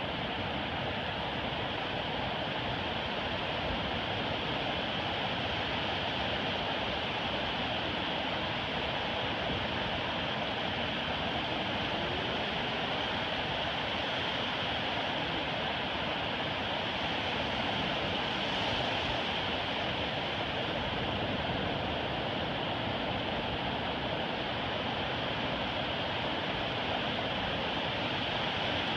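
Ocean surf: small waves breaking offshore and washing up a flat sandy beach, heard as a steady rush with no single crash standing out.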